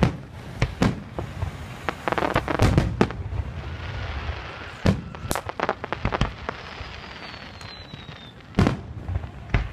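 Fireworks going off: a quick series of sharp bangs with bursts of crackling, and a thin falling whistle about seven seconds in.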